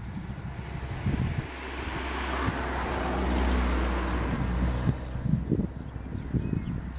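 Airbus A320's jet engines running as the airliner turns at the runway end, the roar swelling to a peak about halfway through and easing off again. Gusts of wind buffet the microphone near the start and end.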